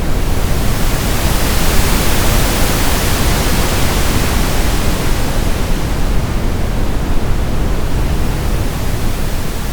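Synthetic brown noise with a layer of pink noise whose amplitude slowly oscillates. The hiss swells just after the start, is strongest two or three seconds in, then gradually ebbs, while the deep rumble stays steady.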